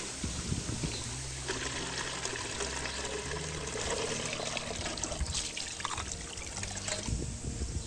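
Water trickling and pouring, a steady splashing wash of sound.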